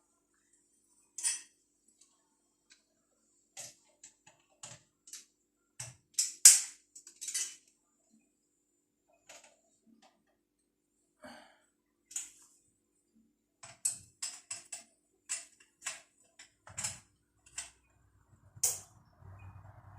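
Irregular sharp clicks, taps and knocks of hard objects being handled: plumbing fittings and tools being worked on. A cluster of louder knocks comes about six to seven seconds in.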